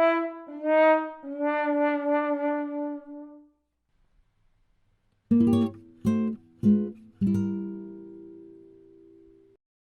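Sad-trombone 'wah-wah-wah-wahhh' fail sting: a falling run of brass notes ending on a long note with a wobbling vibrato. After a short silence comes a second fail sting, three short descending plucked-guitar notes and a final lower note left ringing as it fades.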